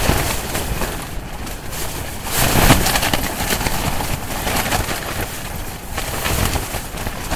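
Strong storm wind gusting against a dome tent, the nylon fabric flapping and rustling close to the microphone over a low wind rumble, with the strongest gust a little over two seconds in.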